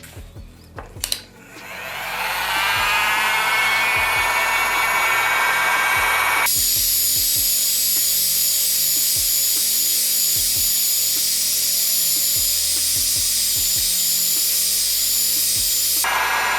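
Digital heat gun switched on with a click; its fan motor spins up in a rising whine and then runs steadily, blowing hot air. Its tone shifts abruptly about six seconds in and again near the end.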